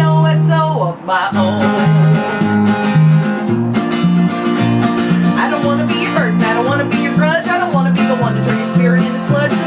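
Country song played on acoustic guitar and electric bass, the bass stepping between notes about twice a second, with women singing over the top.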